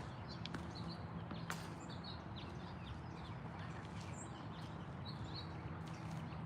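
Small birds chirping in short repeated calls over a steady low hum, with a sharp click about one and a half seconds in.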